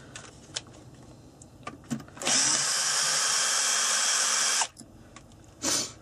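Makita cordless drill running steadily for about two and a half seconds, its bit working through the centre hole of a metal butt plate into the end of a wooden rifle stock to start the pilot hole, then a short blip of the drill near the end.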